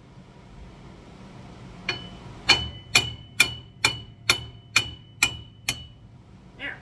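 A hammer striking metal: nine sharp blows, about two a second, each with a short ringing tone, starting about two seconds in.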